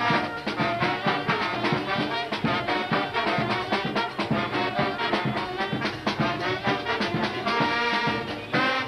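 Brass band of trumpets, trombones and saxophone with snare drums playing a lively tune over a quick, steady drumbeat, the horns holding a long chord near the end.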